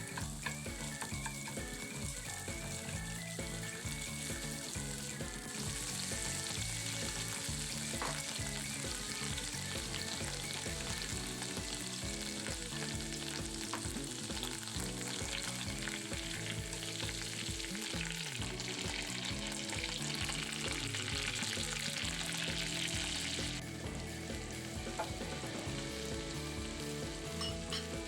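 Food sizzling in a frying pan while it is stirred. The sizzle grows louder about five seconds in and drops back a little near the end.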